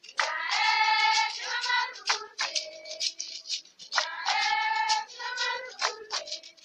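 Women singing together in two long held phrases, the second beginning about four seconds in, with sharp percussive strikes between the phrases.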